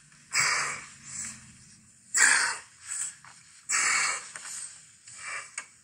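A man's heavy, labored breathing, about four loud breaths roughly a second and a half apart, the sound of someone short of breath. It is played back through a phone's speaker.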